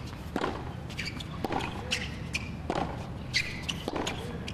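Tennis rally on a hard court: the ball struck by racket strings about every second and a quarter, with ball bounces and short shoe squeaks between the strikes.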